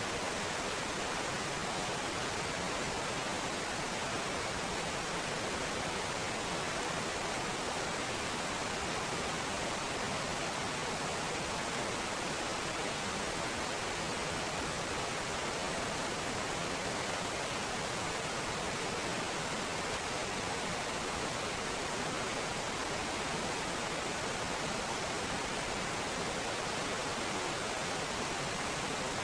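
Stream water cascading over boulders in a small waterfall: a steady, unbroken rush.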